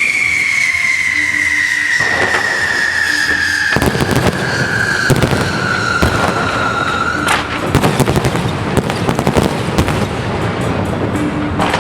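Fireworks going off: a long high whistle slowly falls in pitch and stops about seven seconds in, while dense crackling and sharp bangs set in about two seconds in and carry on.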